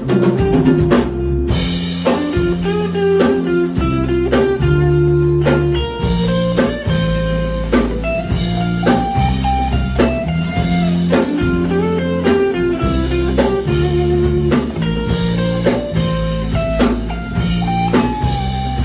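Instrumental break in a Mandarin pop song: a stepping lead melody over a sustained bass line and a steady beat, with no singing.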